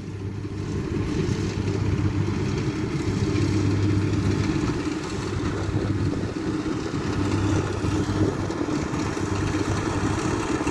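Kubota DC60 combine harvester running steadily while it cuts and threshes rice, a continuous engine hum that grows louder over the first couple of seconds as the machine comes closer.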